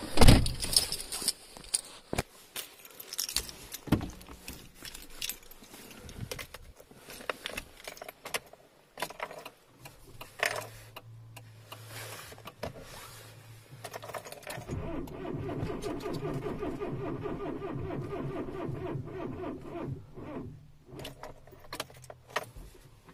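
Inside the cabin of a Kia Sportage: keys jangling and clicking at the ignition, then the starter cranking the cold engine in an even rhythm for about five seconds. The cranking stops without the engine catching.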